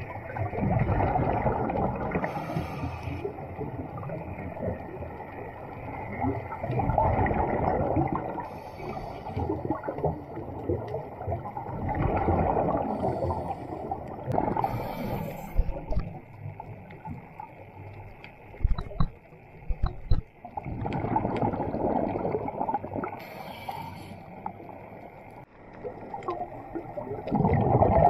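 Underwater scuba breathing through a regulator: each exhalation sends out a gurgling rush of bubbles about every five to six seconds, with a short hiss from the regulator at each inhalation in between.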